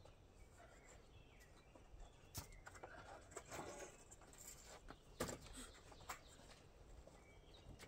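Faint clicks and knocks from the metal support arm and pole of a camper's roll-out awning being handled and adjusted. A handful of separate knocks, the loudest a little past the middle, over a quiet outdoor background.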